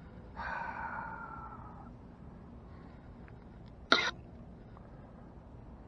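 A man's long breathy sigh, fading out over about a second and a half, then one sharp brief handling knock near the end.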